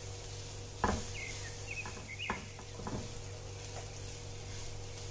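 A utensil knocking against a cooking pan three times, the loudest about a second in. A bird chirps a few short high calls in the background.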